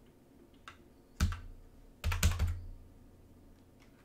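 Computer keyboard keystrokes: a few separate key presses, with a quick run of three or four about two seconds in.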